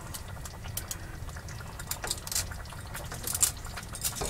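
Spaghetti sauce bubbling in a pan on a gas stove, with irregular clicks and scrapes of a utensil stirring stiff, uncooked spaghetti noodles down into it.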